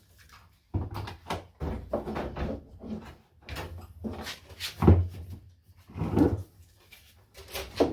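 Concrete counterweight of an LG front-load washer being worked loose and pulled out, scraping and knocking against the washer's tub and frame in irregular bumps, with a heavy thud about five seconds in.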